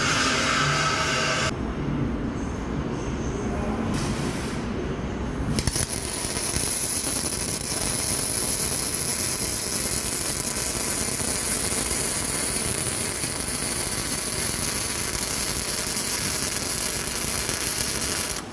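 Electric welding arc crackling and hissing steadily, starting about five seconds in; before it, a duller low noise without the crackle.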